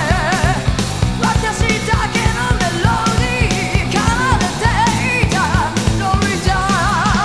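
Rock band music with drums, bass, guitar and synthesizer: a steady beat under a high melody line with wide vibrato.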